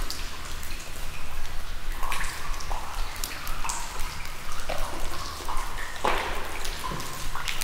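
Water dripping inside a quarry tunnel: scattered drops, several a second, some with a short ringing plink, over a steady low hum.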